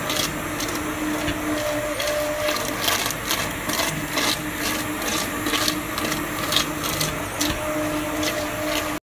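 Immersion blender running steadily as it purées butternut squash soup in a pot, a constant motor hum broken by frequent sharp clicks.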